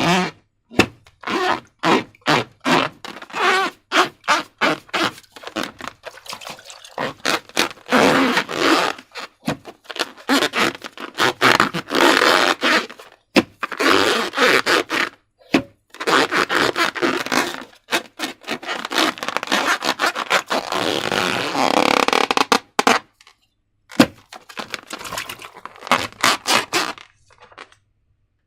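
Slime-making handling sounds: a run of short scrapes and crackles, broken by a few longer scraping stretches of a second or two.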